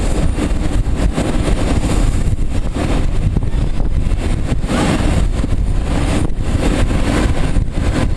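Airbus A321 jet engines running: a loud, steady rumble strongest at the low end, with uneven flutter through it.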